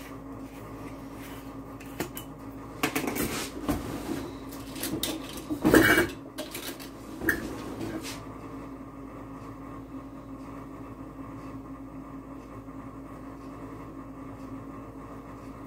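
Clinks and knocks of a glass olive-oil bottle and a spoon being handled while a tablespoon of oil is measured out over a pot, the loudest knock about six seconds in; after about eight seconds only a steady low hum remains.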